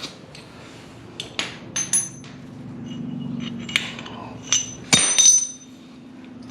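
Steel cab-mount hardware (washers, bolts and pins) clinking and knocking as it is handled, about eight sharp metallic clinks with a brief high ring, the loudest pair about five seconds in. A low steady hum runs underneath from about two seconds in.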